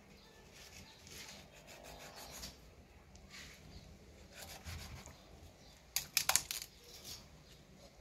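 Knife cutting into a raw whole duck at the wing: soft rubbing and scraping of the blade through skin and flesh, with a brief cluster of sharp snaps about six seconds in.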